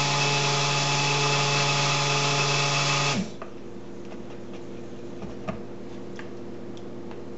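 Handheld stick blender motor running steadily while mixing cold-process soap batter, then switched off about three seconds in and winding down. After that a low hum remains, with a few faint ticks.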